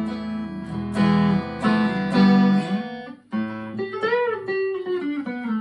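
Harley Benton ST-25th Strat-style electric guitar being played: strummed chords ringing for about three seconds, then single notes bent up and down in pitch.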